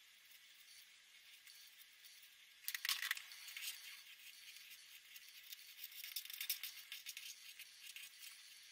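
Marker pen scratching on paper in many quick short strokes, starting about three seconds in after a faint hiss.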